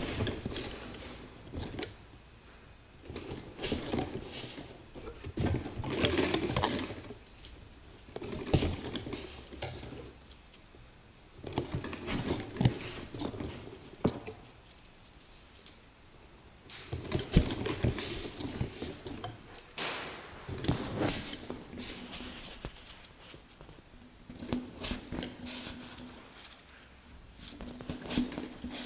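Thin wooden skewers being handled and set into a fabric-covered form: irregular clusters of light clicks, taps and rustling, with short quieter gaps between them.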